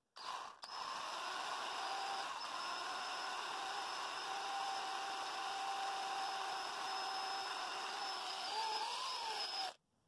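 Small electric drill running steadily with a thin whine as its oiled bit bores into the die-cast metal body of a 1:64 toy car, drilling out a tail light. The pitch wavers up and back down near the end, then the drill stops suddenly.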